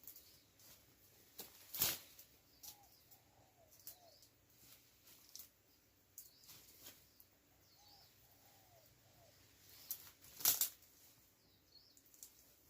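Small birds' wings flapping in short, scattered bursts, the two loudest about two seconds in and near the end, with faint short bird calls between them.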